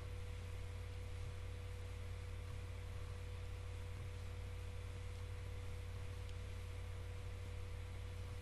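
Steady low electrical hum with a fainter steady tone above it and an even hiss: the recording's background noise, unchanged throughout, with no distinct events.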